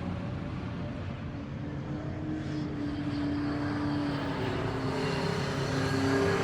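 NASCAR stock car's V8 engine running at high revs: a steady drone with slight shifts in pitch that grows louder toward the end.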